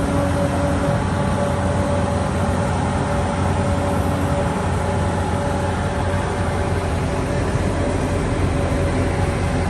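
Bobcat T650 compact track loader's diesel engine running steadily, a low drone with a steady higher tone over it.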